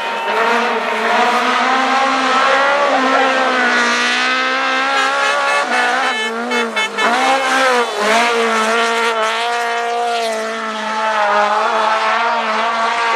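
Rally car engine revved hard through a bend, its pitch climbing and dropping again and again with throttle and gear changes. A rapid string of sharp pops comes about six seconds in.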